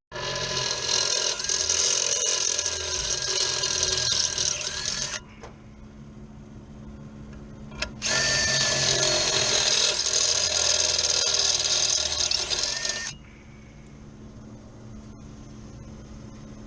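A power drill running in two bursts of about five seconds each, its motor pitch dipping slightly under load, as it bores out bolt holes in a metal fan-motor mount to widen them so the bolts will line up.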